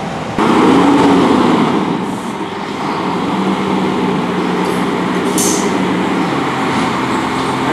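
Pierce fire engine's diesel running loudly while it idles and starts to move, with a short hiss of air about five and a half seconds in.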